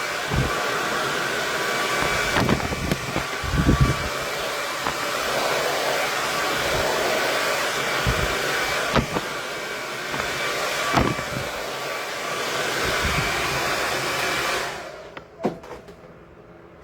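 KISS 1875 Watt Pro Tourmaline Ceramic hair dryer blowing steadily with a faint whine, with a few short knocks over it; the dryer stops a little before the end.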